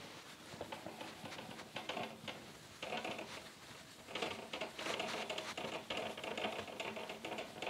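Marker writing on a whiteboard: a faint, rapid, squeaky scratching in spurts, busiest from about three seconds in.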